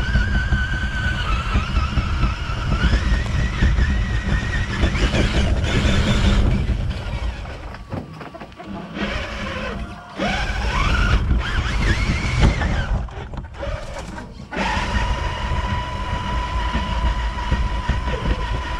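Traxxas TRX-4 RC truck's electric motor and gears whining, the pitch rising and falling with the throttle, over a low rumble as it drives over grass and dirt. The sound drops away briefly twice in the middle, then settles into a steady whine.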